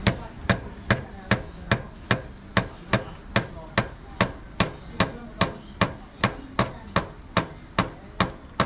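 Steady metal-on-metal tapping, about two and a half strikes a second: a large steel bolt used as a makeshift hammer knocks a motorcycle side mirror's alloy mount into place on the handlebar.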